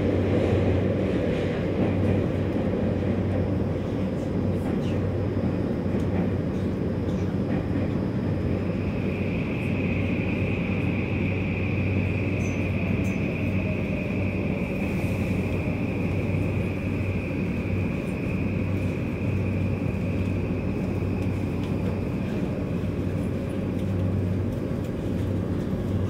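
Running noise heard inside a Tokyu 3020 series commuter train car: a steady rumble of the wheels on the rails with a low hum. A high, steady whine joins about nine seconds in and fades out near the end.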